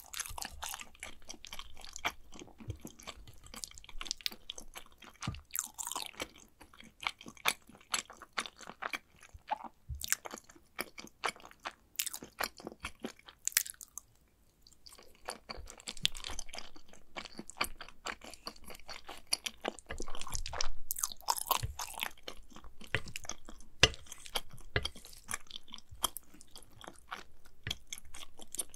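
Close-miked chewing of macaroni and cheese: dense, irregular wet mouth clicks and smacks. There is a short pause about halfway through before the chewing resumes.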